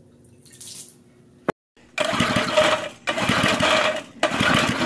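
A glass-headed Briggs & Stratton single-cylinder engine being cranked over on tequila for fuel, in three runs of about a second with short breaks, starting about two seconds in. It nearly catches but does not run.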